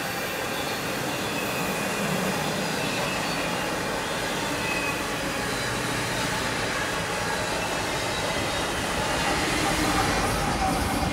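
Passenger train rolling past at speed, a steady rush of steel wheels on rail from the streamlined stainless-steel cars. Near the end the BNSF diesel locomotive at the rear goes by close, and the sound swells a little.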